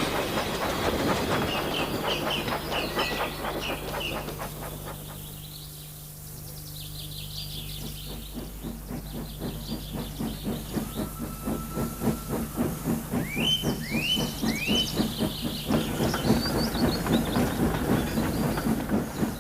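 Steam locomotive chuffing in a steady rhythm that fades away about a quarter of the way in and then builds up again, with birds chirping over it, including three quick rising chirps past the middle.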